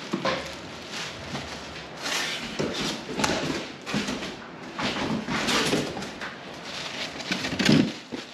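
Unboxing and handling of packaging and loose parts: irregular rustling and scraping with a few knocks, the loudest one near the end.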